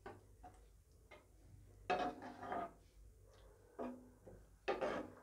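Metal spatula scraping and knocking against a nonstick kadai as yogurt is stirred into the tadka: about four separate scrapes and clanks, some with a brief ring from the pan.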